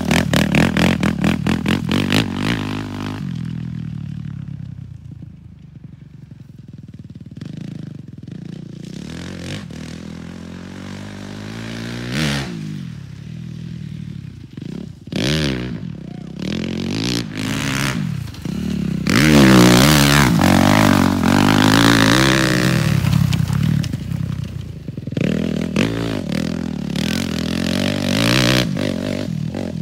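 Motocross bike engine revving up and down through the gears as it rides around a field. It is loud as the bike passes close at the start and again from about twenty seconds in, and fainter in between while the bike is far off.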